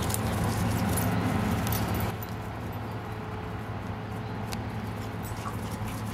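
Two Cairn Terrier puppies play-fighting: scuffling with scattered sharp clicks over a steady low hum, louder for the first two seconds.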